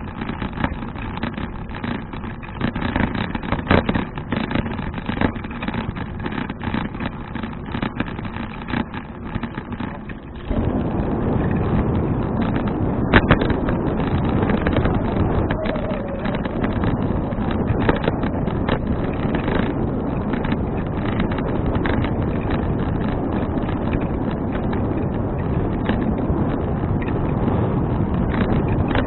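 Riding noise from a moving bicycle as picked up by an action camera: wind buffeting the microphone together with road and rattle noise, with scattered crackles. About ten seconds in it turns abruptly louder and denser and stays that way.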